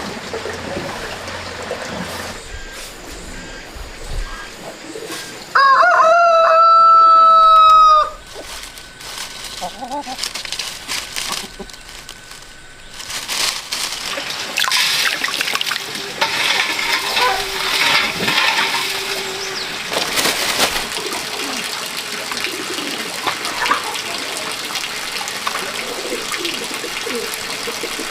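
A rooster crows once, a single loud crow of about two and a half seconds that rises at the start and then holds its pitch, about six seconds in. A steady noise without a clear pitch fills the second half.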